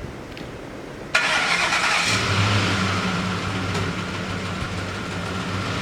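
Ford F-150 Triton V8 engine starting up about a second in, then running steadily. The truck has lost its power and runs rough, which is put down to a failing variable valve timing solenoid.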